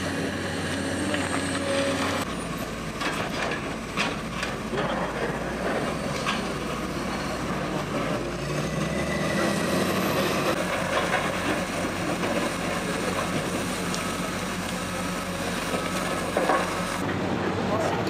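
Diesel engines of heavy earthmoving machines, a wheel loader and a JCB backhoe loader, running with a steady low drone. A few clanks come about three to four seconds in, and voices talk over it.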